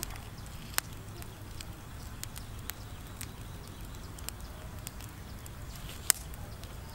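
A whole chicken turned on a bamboo spit over charcoal embers: scattered sharp clicks and ticks, the loudest about six seconds in, over a low steady rumble.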